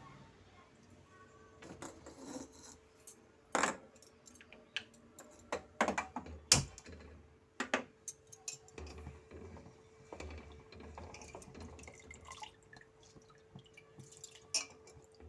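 Metal cooking pots and utensils clinking and knocking now and then, with a little water, as soaked rice is readied for cooking; the sharpest clink comes about six and a half seconds in. A faint steady hum runs underneath.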